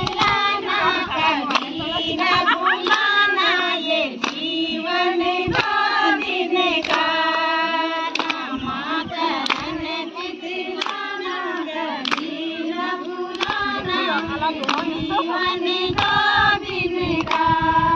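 A group of women singing a devotional bhajan in unison, clapping their hands to a steady beat of about three claps every two seconds.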